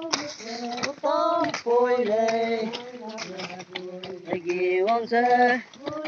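Voices singing a drawn-out, chant-like song, with a few sharp knocks in between.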